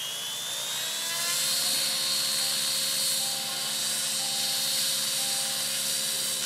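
T-Rex 700E electric model helicopter spooling up: its motor whine rises in pitch through the first second and a half, then holds steady with the rotor's whir as the helicopter lifts off into a low hover.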